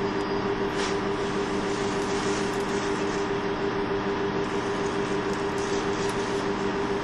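KiHa 25 diesel railcar under way, heard from on board: its diesel engine runs at a steady pitch over the constant rumble of the wheels on the rails.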